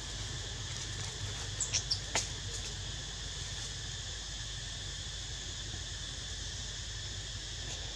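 Steady, high insect drone, with four quick, high, falling chirps about one and a half to two seconds in.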